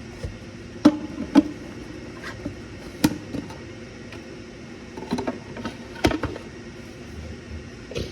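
Hand tools and metal engine parts clanking and clinking during an engine teardown: a handful of sharp knocks, the loudest about a second in and near three and six seconds.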